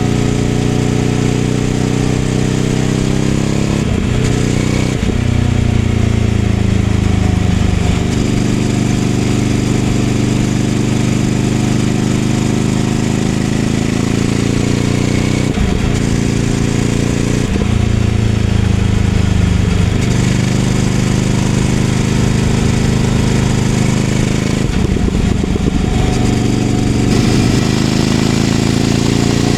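Ducati Scrambler 800's air-cooled L-twin engine running through a Leovince LV-10 exhaust on the move. The engine note rises and falls with the throttle, with short breaks several times where the pitch drops and climbs again.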